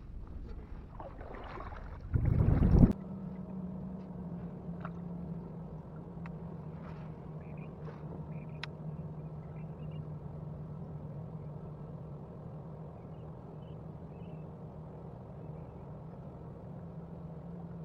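A kayak on open water: a loud rush of wind on the microphone for under a second about two seconds in, then a steady low hum with light water ticks and gurgles against the hull.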